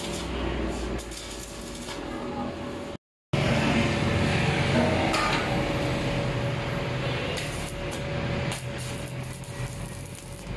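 Stick (arc) welding on a steel shutter guide rail: the electrode sizzling and crackling steadily, with a steady hum underneath and a few sharp pops. The sound drops out for a moment about three seconds in.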